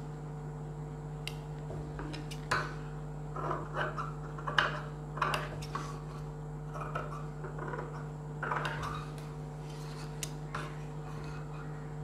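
Tailor's shears snipping through blouse fabric and its lining, in irregular single snips mixed with the rustle of cloth being smoothed and shifted on the table. A steady low hum runs underneath.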